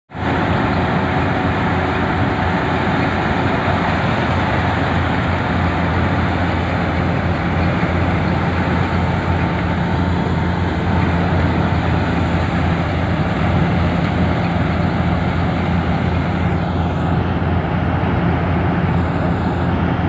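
KS 9300 four-wheel-drive combine harvester running under load as it harvests paddy: its engine and threshing machinery make a loud, steady drone.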